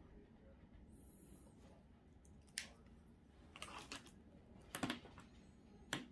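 Gel pens being handled over a colouring book: scattered light clicks and taps, a few at a time, with the most bunched together near the middle.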